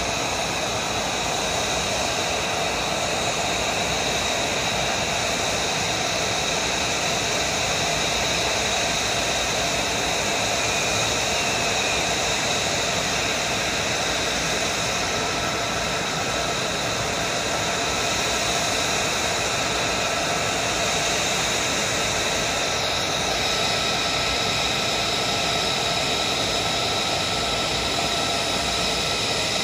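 F-35 fighter's jet engine running at ground idle: a steady whine with several high tones over a rush of air noise.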